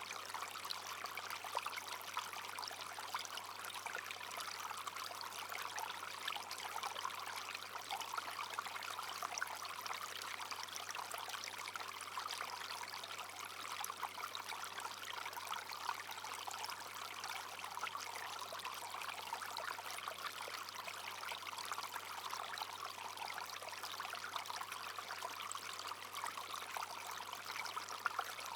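Small brook flowing steadily, water babbling and trickling over stones.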